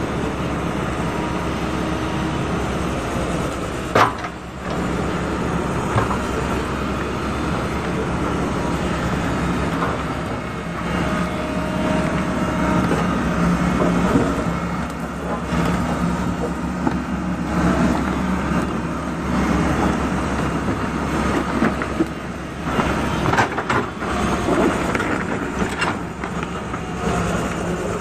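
Diesel engines of a crawler excavator and a single-drum vibratory roller running steadily under load as the excavator's bucket pushes the roller up a rough gravel road. A sharp knock comes about four seconds in, and scattered clanks come near the end.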